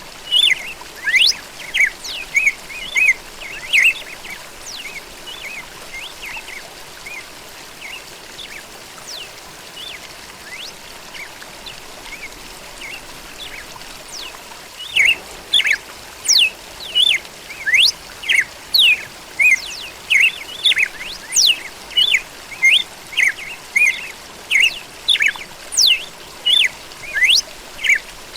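Red-cowled cardinal (galo-da-campina) singing in quick runs of short, sharp chirps and whistled sweeps. The notes come thick for the first few seconds, thin out, then return densely from about halfway, over a faint steady hiss.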